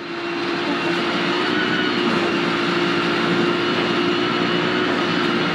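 Rally car's engine running hard at steady high revs, heard from inside the cockpit, over a constant rush of tyre and gravel noise. The level climbs over the first second, then holds steady.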